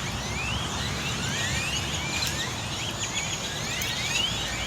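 A flock of birds calling, many short rising chirps overlapping, over a steady low rumble.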